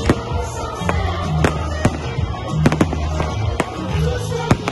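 Aerial fireworks bursting in a fast run of sharp bangs and crackles, about two a second. Music with a pulsing bass line plays underneath.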